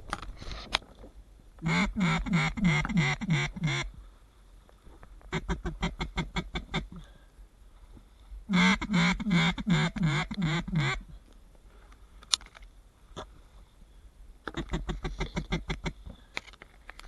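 Duck quacking in four rapid runs of about six to eight notes each, with pauses between runs, the first and third runs loudest.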